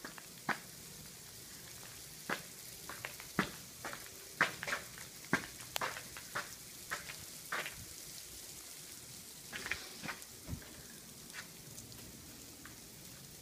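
Sleet falling: a steady hiss with scattered, irregular sharp ticks of ice pellets striking hard surfaces.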